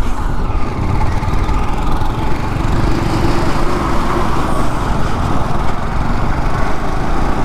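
Motorcycle engine running steadily as the bike is ridden along a road, under a constant rush of wind and road noise.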